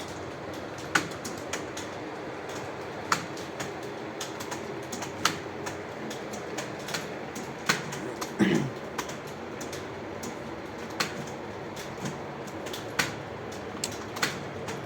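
Several people typing on computer keyboards at once: scattered, irregular key clicks over a steady room hum. A short falling voice-like sound comes about eight seconds in.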